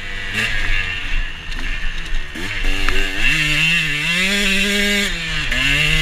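KTM 125 two-stroke dirt bike engine under way, the revs low at first, then climbing sharply about two and a half seconds in and holding high, dipping briefly near the end before climbing again.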